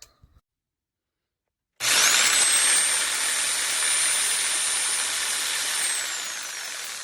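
Hammerhead 4.8-amp corded jigsaw motor switched on about two seconds in: a high whine rises quickly as it spins up, runs steady, then falls near the end as the motor is switched off and winds down.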